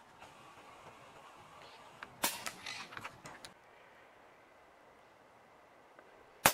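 A single sharp, short crack of a PCP air rifle shot near the end. About two seconds in, a brief cluster of clicks and knocks.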